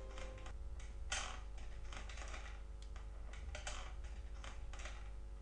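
The last held piano notes die away about half a second in, leaving soft, even clicks repeating about twice a second.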